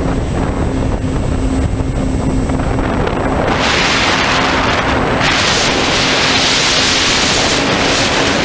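Onboard audio of a small FPV model aircraft in flight: heavy wind rumble on the microphone with a steady electric-motor hum. About three and a half seconds in, a loud hiss rises over it.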